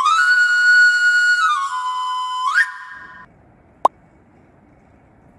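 Short electronic logo jingle: a held synth note that steps down in pitch, ends in a quick rising sweep and fades out about three seconds in. A single short click follows, then faint background noise.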